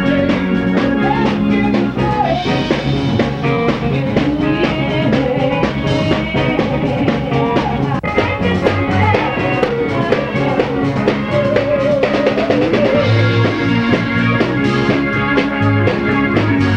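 Live band music: a drum kit keeping a steady beat under a bass line and a wavering lead melody.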